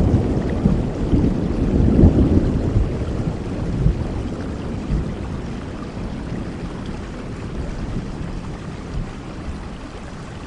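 Rain falling steadily, with a low rumble of thunder that rolls away over the first few seconds; the whole sound grows gradually quieter toward the end.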